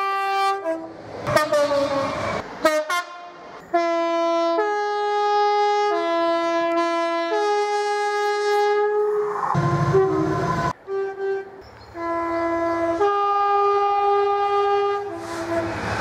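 Two-tone horns of British diesel trains: quick blasts whose pitch drops as a train passes, then long notes alternating low and high, played as a tune. Near the middle comes the rush of a passing train and a sudden break, then more alternating low and high horn notes over a diesel engine's steady rumble.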